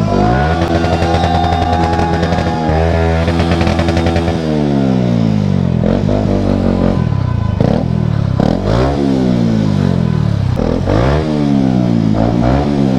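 Yamaha MT motorcycle engine revving up sharply and held at high revs for about four seconds, then dropping off and revving up again three more times as the bike rides on. A steady single tone sounds over the first three seconds.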